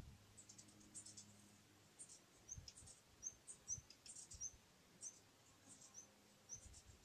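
Near silence, with faint, short, high-pitched bird chirps repeating about every half second to a second.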